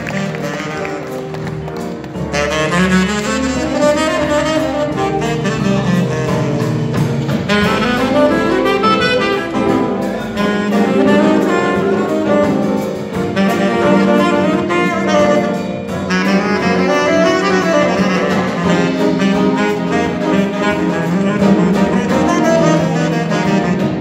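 Latin jazz band playing live, a section of saxophones and brass leading over a bass line. The full band gets louder and fuller about two seconds in.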